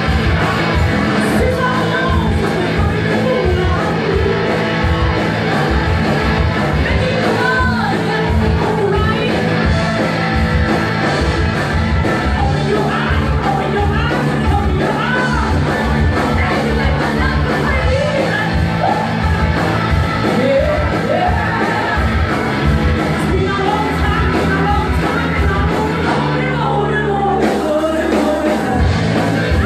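Live rock band playing loudly, with sung vocals over drums, bass and electric guitar. Near the end the drums and cymbals drop out for a couple of seconds, leaving a held low note, before the full band comes back in.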